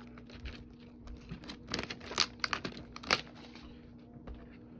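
Clear plastic shrink wrap being torn and crinkled off a cardboard trading-card box, in a run of sharp crackles from about a second and a half to three seconds in.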